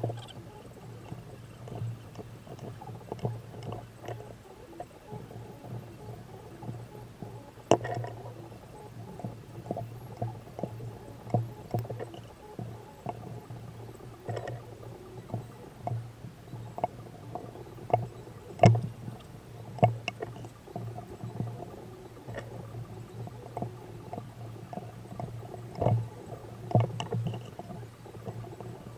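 Battery spot welder joining nickel strip to lithium cells. It gives irregular sharp snaps, a few much louder cracks among them, over a steady low electrical hum.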